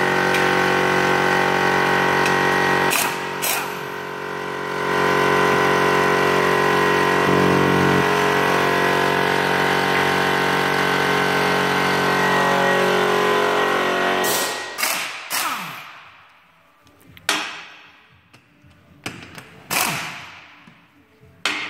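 A workshop machine running with a steady hum for about fourteen seconds, then stopping suddenly. After it, a series of sharp metallic knocks and clicks as a steel wheel is set onto the hub and its bolts put in place.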